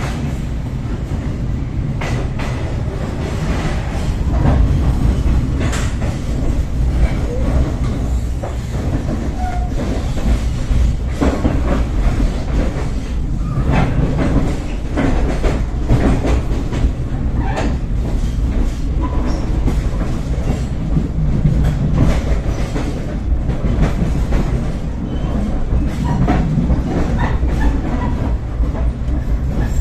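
Argo Parahyangan passenger train running on the rails, heard from inside the carriage: a steady deep rumble with irregular clicks and knocks of the wheels over rail joints.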